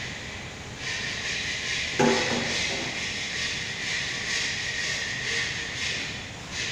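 Steady hiss of a commercial kitchen, with one ringing clank of steel cookware about two seconds in.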